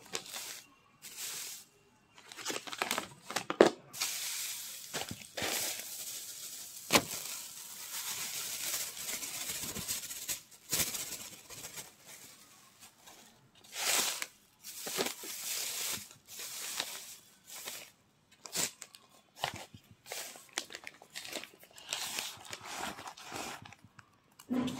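Irregular crinkling and rustling of a crumpled foil wrapper as crushed naphthalene powder is handled, with a few sharp crackles.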